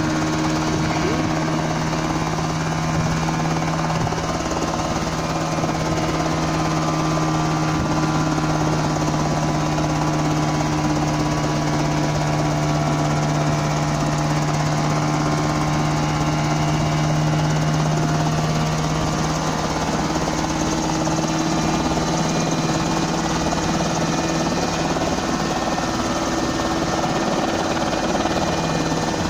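Homemade coaxial-rotor helicopter running steadily, its engine and two counter-rotating rotors giving a loud, even drone at a constant pitch as it lifts just off the ground.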